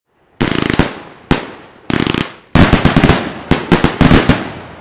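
Pirotecnia El Gato 'Sonora' 25-shot fireworks cake firing its titanium salute shots: a string of loud bangs, the first about half a second in, coming faster in the second half, each trailing off in echo.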